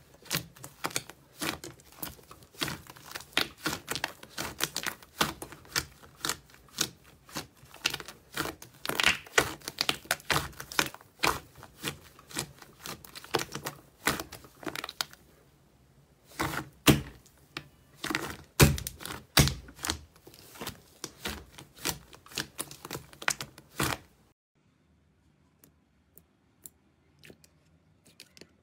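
Hands squeezing and poking a thick, putty-like pale blue slime in a bowl: a fast, irregular stream of sharp, sticky pops and clicks, with a short lull partway through. The popping stops abruptly near the end.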